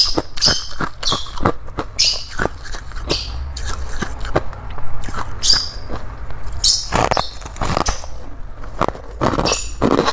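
Humidifier frost being bitten and chewed: a continuous run of crisp, irregular icy crunches and crackles.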